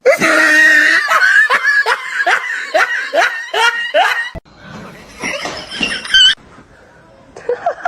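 A person laughing hard: a run of repeated, falling "ha" sounds for about four seconds, then an abrupt cut to quieter, mixed sound.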